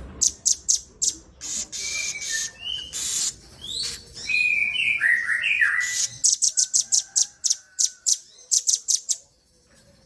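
Masteran birdsong of small songbirds (siri-siri kecil, red-billed rambatan or velvet-fronted nuthatch, and sogon): rapid runs of sharp, high chips and trills. Short whistled notes and quick sliding calls sit in the middle, and there is a brief pause near the end.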